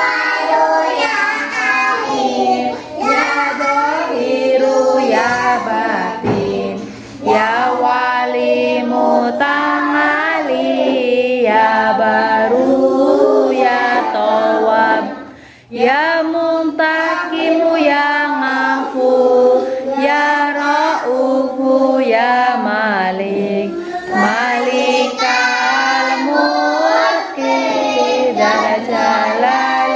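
A group of young children singing a prayer together in unison, in a sing-song chant, with a couple of brief breaks for breath.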